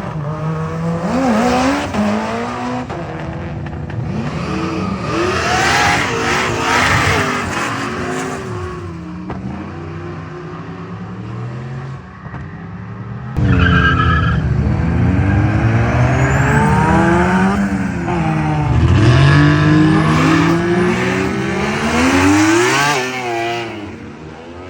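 Modified street cars' engines accelerating hard side by side. Their pitch climbs and drops back again and again as they shift through the gears, with several engines overlapping. The sound jumps suddenly louder about halfway through.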